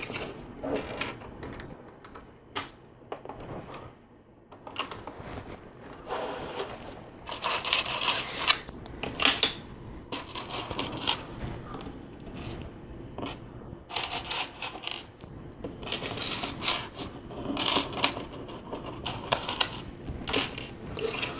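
Small plastic LEGO pieces clicking and clattering against each other as they are picked through and snapped together, in irregular bursts of sharp ticks.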